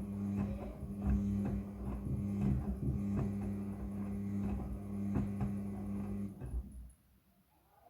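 Front-loading washing machine running a wash: a steady motor hum with irregular thuds and knocks from the drum tumbling its load. The hum cuts off a little after six seconds in, leaving near quiet.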